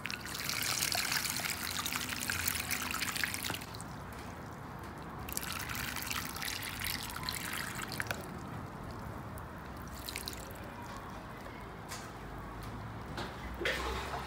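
Water poured onto the potting soil of freshly planted African daisies, their first watering after planting: two pours of about three seconds each with a short break between, then fainter drips and trickles.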